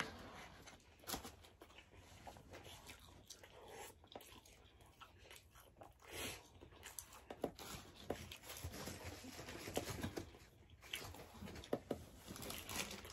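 Faint eating sounds of people chewing and biting into a bacon cheeseburger and fries, with scattered small clicks and crackles.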